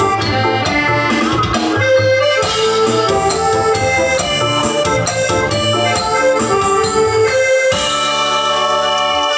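Loud dance music led by an electronic keyboard with an organ-like sound over a steady bass line. Near the end it moves to long held chords.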